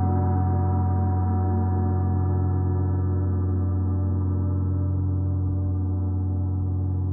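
A gong's sustained resonance: a deep, steady wash of many overlapping tones with no new strike, slowly fading.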